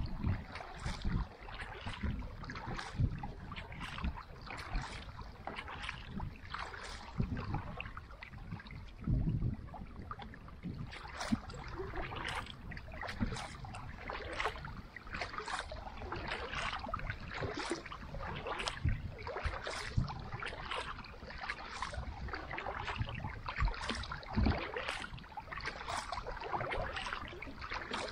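Carbon kayak paddle blades dipping and pulling through lake water in regular strokes, each with a splash and drips, with water lapping along the kayak hull and low thumps underneath.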